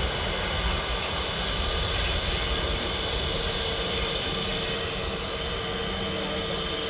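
Airbus A321neo's twin turbofan engines running at taxi power as the airliner taxis. A steady jet whine with a few held tones over a low rumble.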